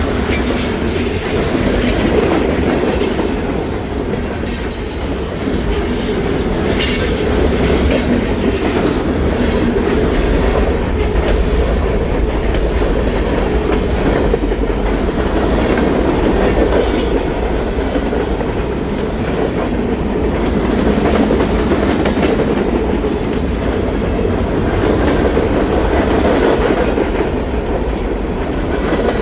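Freight train cars rolling past at a steady pace: a constant rumble with the wheels clicking over rail joints, the clicks thickest in the first half, and a brief faint high squeal about three-quarters of the way through.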